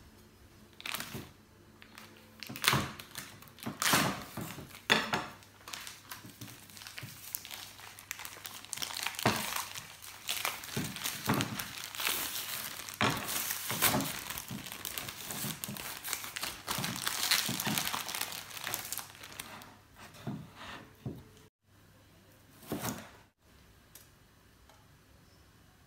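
Plastic zip-top bag crinkling, crackling and tearing loose as it is peeled off a solid slab of potato, with a few knocks of handling. The crinkling dies away near the end.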